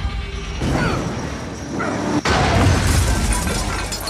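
A film action-scene crash: a pickup truck slams into a van with a loud smash of crunching metal and breaking glass, starting suddenly a little over two seconds in.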